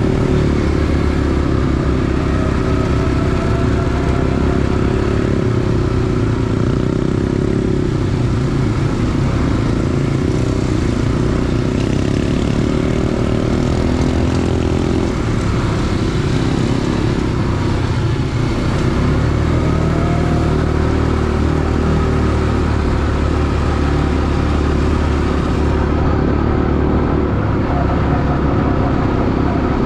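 ATV engine running steadily and loud, close to the microphone.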